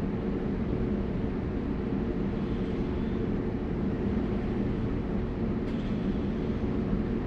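Steady machinery drone with a low hum, and a faint click about five and a half seconds in.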